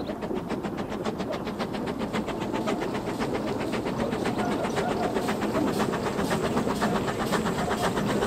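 Narrow-gauge steam locomotive running with a coach, a rapid even beat of about five strokes a second, growing steadily louder as it approaches.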